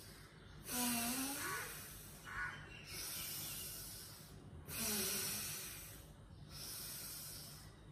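A woman's deep breathing close to the microphone: slow breaths in and out, four long breaths in all, paced to raising and lowering a leg in a seated yoga exercise. Two of the breaths open with a brief voiced hum that slides up in pitch.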